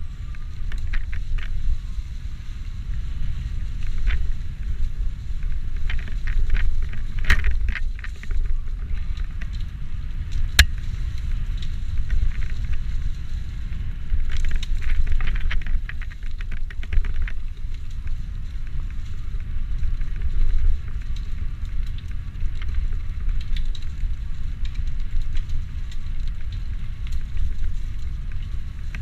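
E-mountain bike ridden over a rough trail: a steady low rumble of wind on the microphone, with bursts of rattling and clicking from the bike over rough ground, and one sharp click near the middle.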